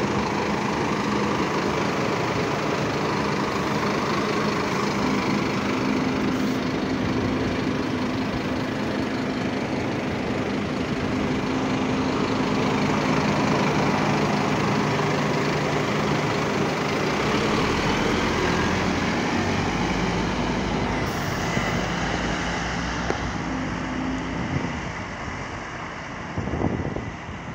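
Scania double-decker bus's engine and cooling fan running at the rear: a steady, loud mechanical drone with held low tones. Late on the bus pulls away and the sound fades.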